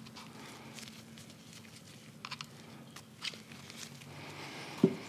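Faint scattered clicks and rustles of nitrile-gloved hands handling small oil-filter parts and O-rings over a plastic tub, with a sharper knock just before the end. A faint steady hum runs underneath.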